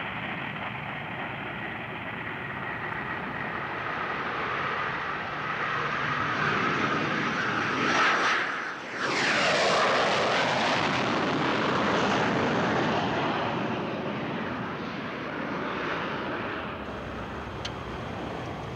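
Small business jet's engines at takeoff power as the jet rolls down the runway and lifts off. The noise swells as the jet passes close, about eight seconds in, with a brief dip and a sweep in tone. It then runs on steadily and eases a little near the end.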